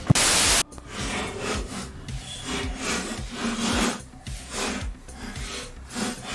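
A hand wire brush is scrubbed back and forth on the go-kart's steel frame tubing in rough scraping strokes, about two a second. This cleans up the metal around the weld area. A brief, loud rushing burst comes right at the start.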